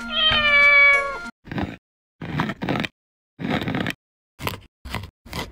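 A cat's meow, one call that falls slightly in pitch, then a knife chopping chocolate on a wooden board in about six short strokes at uneven intervals.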